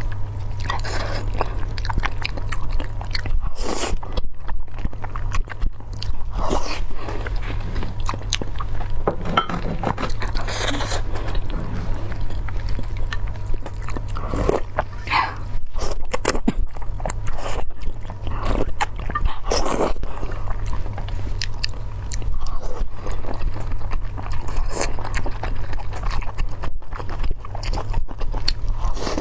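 Close-miked eating: irregular biting, crunching and chewing of food in the mouth, over a steady low hum.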